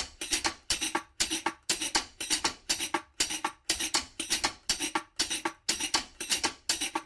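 Music with a steady percussive beat, about two beats a second, starting abruptly.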